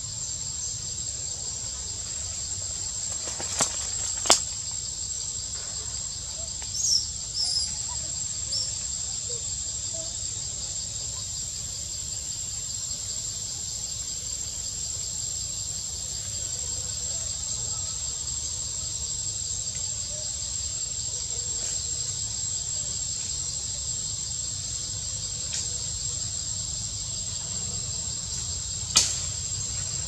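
Insects droning steadily at a high pitch, with a few short high chirps about seven seconds in and sharp clicks around four seconds in and near the end.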